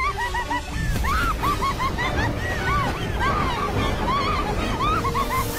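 Anime battle-scene soundtrack: a loud, steady low rumble with many short high cries over it, each rising and falling, coming irregularly and overlapping, mixed with music.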